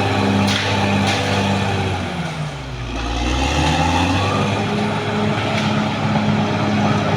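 Caterpillar D6R XL bulldozer's diesel engine running steady; about two seconds in its note sags sharply and recovers over the next couple of seconds. Two sharp knocks sound near the start.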